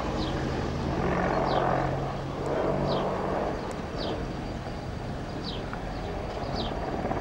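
Apache attack helicopter flying overhead, its rotor and turbine noise steady, swelling about a second in and easing off after about three and a half seconds as it banks away.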